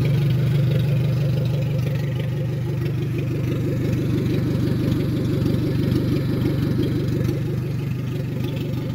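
Toyota Corona engine idling steadily with no exhaust system fitted, giving a loud, rapid, even pulsing straight from the open exhaust.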